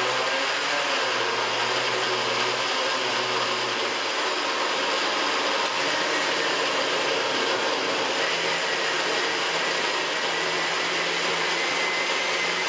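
Countertop blender running continuously, puréeing tomatoes, cucumber, peppers and tomato juice into gazpacho: a loud, steady whirring whose motor pitch steps up slightly about halfway through.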